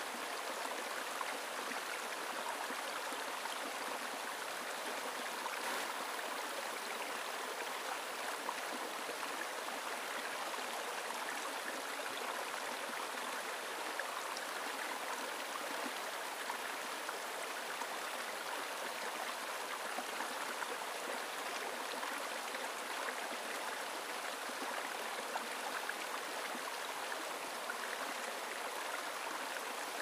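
Shallow mountain stream running over rocks and boulders: a steady, even rush of splashing and rippling water.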